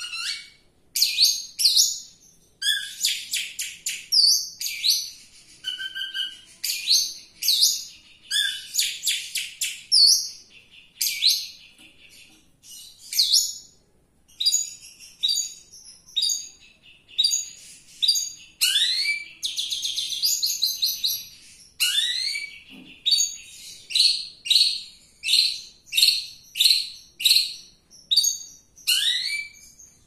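Caged long-tailed shrike (cendet) singing: a continuous run of short, varied chattering phrases and trills, with a few upward-sliding notes and, near the end, a string of quick, evenly spaced calls.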